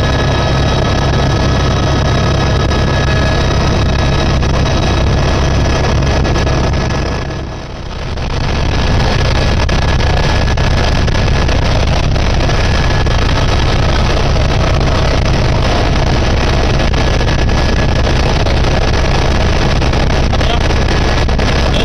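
Helicopter cabin noise in flight: the engine and rotor keep up a steady, heavy drone with a faint whine over it. About seven seconds in, the noise dips briefly and then comes back at the same level.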